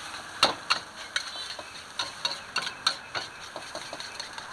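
Metal spatula scraping and clinking against a wok as fried rice is stir-fried, in irregular strokes every few tenths of a second, the loudest about half a second in.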